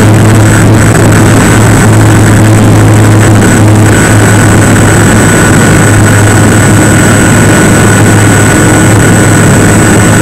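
Model plane's motor and spinning propeller picked up by the onboard camera's microphone, a loud steady drone with a low hum and rushing air noise.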